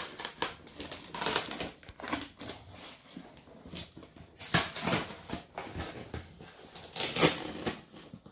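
Irregular crinkling and rustling, like packaging being handled, with several louder bursts about a second in, around the middle and near the end.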